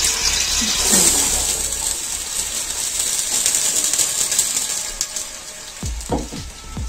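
Chopped onions hitting hot oil in a steel stockpot and sizzling as they begin to fry; the hiss swells about a second in and eases off toward the end.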